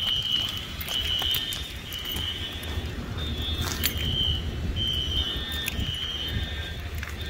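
Fire alarm horns sounding the temporal-3 evacuation signal: three short high beeps, then a pause, repeating. Footsteps on concrete are heard with it.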